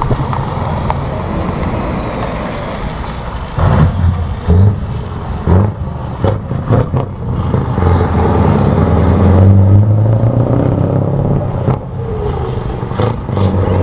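Scania V8 truck tractor units running and accelerating as they drive around in turns, the deep engine note rising and falling. There are several short loud bursts a few seconds in.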